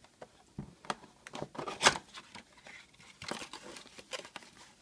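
Cardboard box of trading cards being torn open by hand, its cellophane wrap crinkling: irregular tearing, crackling and rustling, loudest about two seconds in.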